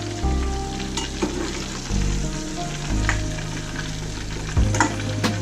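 Battered catfish pieces deep-frying in a small pot of oil: a steady sizzle, with a few light clinks of a slotted metal skimmer against the pot as pieces are lifted out. Background music with a low bass line runs underneath.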